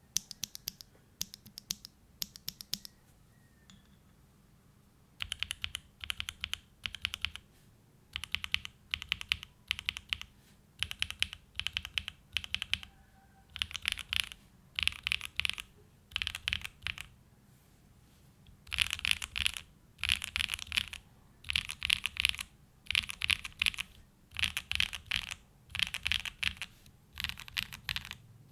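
Mechanical keyboard being typed on: a Tofu65 2.0 with a polycarbonate plate, case and mid foam, hand-lubed Gateron Summertime switches and GMK Olive keycaps. A few scattered keystrokes, a pause of about two seconds, then short bursts of rapid key clacks with brief gaps between them, louder and denser in the second half.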